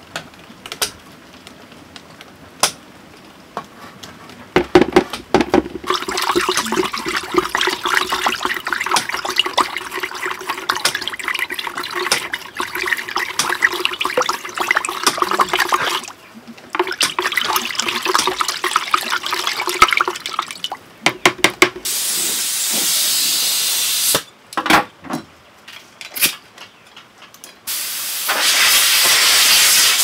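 Paint being stirred and sloshed with a stick in a plastic bucket, a long wet, crackly churning. Near the end come two loud bursts of hissing air from a compressor-fed paint spray gun.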